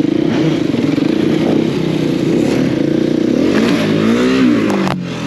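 Enduro dirt bike engine running at low speed over rough ground, its pitch rising and falling with throttle blips about three and a half to four and a half seconds in. A sharp knock near the end.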